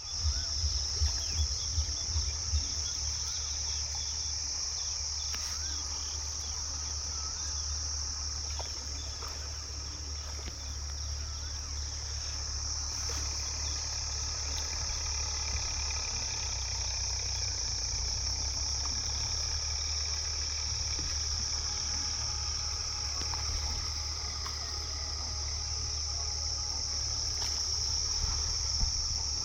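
Steady high-pitched insect chorus, with faint chirps above a low rumble. A few low thumps come in the first couple of seconds.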